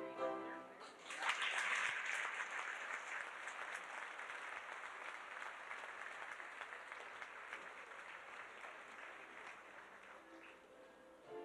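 The last notes of a children's choir song, then an audience applauding from about a second in. The applause slowly dies away.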